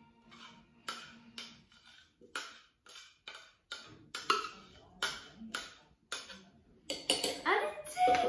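Spoon knocking and scraping against a plastic beaker, about a dozen sharp taps, spooning thick whipped dalgona coffee foam out onto a glass of milk. Near the end a woman's voice comes in.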